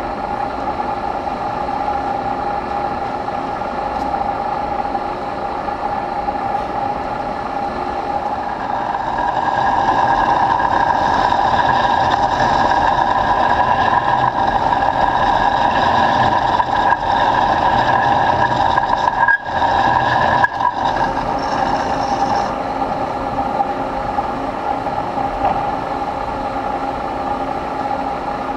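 Large engine lathe (American Pacemaker 20x192) running, its tool cutting a groove into the face of a steel hydraulic-cylinder part. There is a steady whine that grows louder from about nine seconds in, drops out briefly twice around twenty seconds, and eases after about twenty-two seconds.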